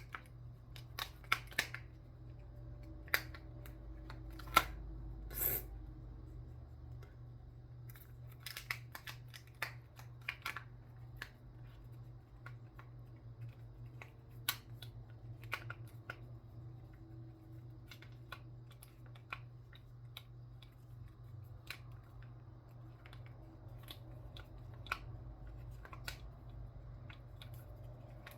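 Shape-shifting fidget cube being folded and flipped by hand, its segments snapping together in irregular sharp clicks, with a short rustle about five seconds in.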